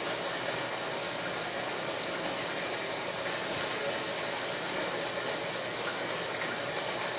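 Razor blade cutting thin plastic covering film along a balsa wood frame edge: light scratching with scattered small ticks as the film is sliced, over a steady hiss.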